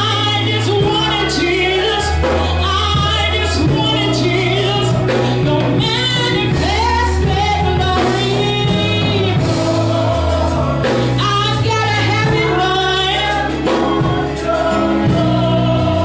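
Gospel worship song: a woman singing lead with other voices joining, over instrumental backing whose held bass notes change every second or two.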